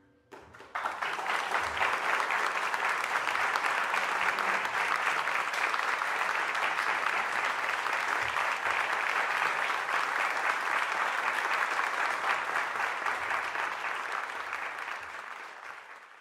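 Audience applauding: a few first claps, then full applause breaking out about a second in and holding steady, fading away near the end.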